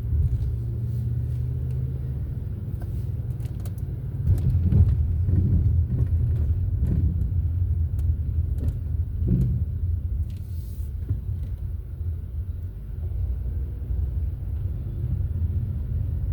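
Low, steady rumble of a car driving, heard from inside the cabin, with a few light clicks and knocks over it.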